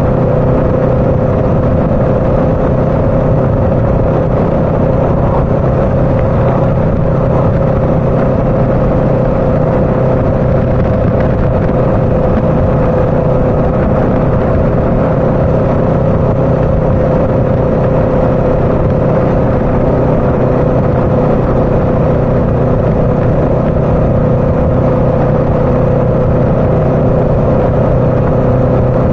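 Motorcycle engine running at a steady cruise, heard from the rider's seat, with a constant hum that holds one pitch and an even rush of riding noise.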